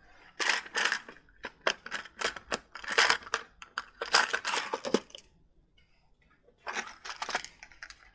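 Plastic parts-storage drawers being slid open and shut while loose LEGO pieces rattle and click inside them and a small plastic parts bag crinkles. The quick clicks stop for about a second and a half near the end, then start again.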